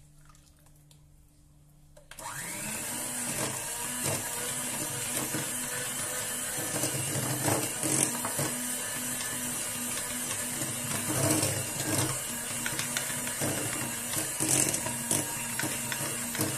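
Electric hand mixer switched on about two seconds in. Its motor spins up to a steady whine as the beaters work an oily, crumbly cookie dough, with a few sharp clicks and knocks along the way.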